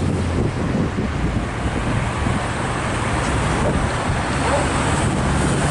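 Steady wind and road-traffic noise with a low engine hum running under it.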